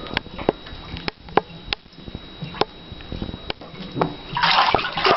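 Water in a bathtub being stirred by a person in it: a few sharp knocks and drips, then from about four seconds in, loud sloshing and splashing.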